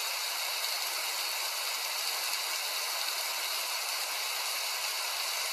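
Heavy rain falling steadily, a constant even hiss of patter with no let-up.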